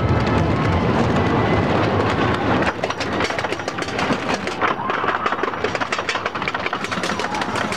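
Roller coaster train running along its steel track: a steady rumble with rapid clattering of the wheels, the clatter growing busier from about three seconds in.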